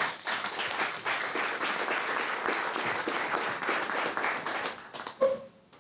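Audience applauding, the clapping thinning out and stopping after about five seconds, with a brief louder sound as it ends.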